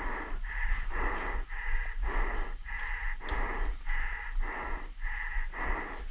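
A paintball player panting hard inside a paintball mask: quick, even breaths, about two a second.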